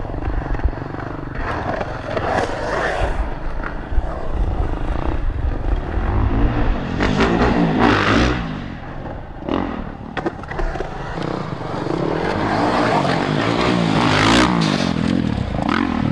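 Skateboard wheels rolling and scraping on a concrete bowl and pipe, rising and falling in surges, with a few sharp knocks.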